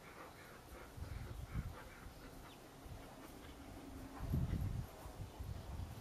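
Faint sounds of Airedale terriers in a yard, with a low rumbling noise on the microphone that is loudest a little past the middle.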